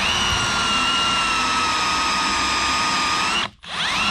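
Power drill spinning up and running steadily with a high whine as it drills out an aluminum hinge rivet. It stops briefly about three and a half seconds in, then spins up again.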